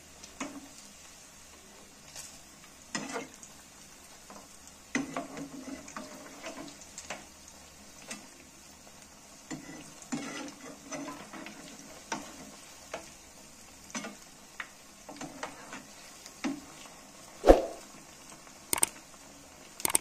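Potato-and-pea patties deep-frying in hot oil with a steady faint sizzle. A slotted metal spatula turning them scrapes and knocks against the pan at irregular moments, loudest in one sharp knock about three-quarters of the way through.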